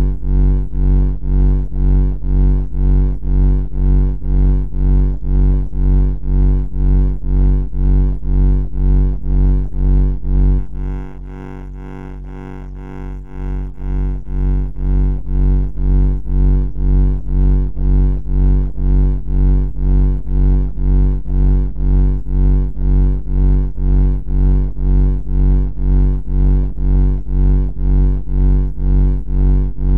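A loud, low electronic buzz pulsing on and off about twice a second. It briefly settles into a quieter steady tone about eleven seconds in, then the pulsing resumes.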